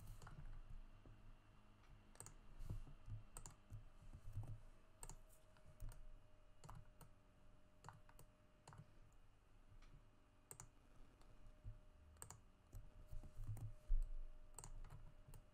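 Faint, irregular clicks of a computer mouse and keyboard as buttons and shortcut keys are pressed, the loudest click coming near the end.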